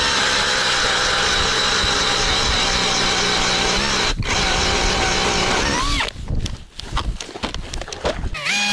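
Cordless 18 V drill-driver turning an ice auger, running steadily under load as it bores through thick lake ice, with a brief break about four seconds in. It stops about six seconds in, giving way to uneven knocking and clatter, and a short whine near the end.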